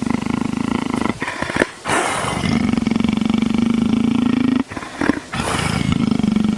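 Leopard rumbling loudly in a rapid, purr-like pulse, broken twice by loud breaths, while its head is scratched: the sound of a contented big cat enjoying the scratching.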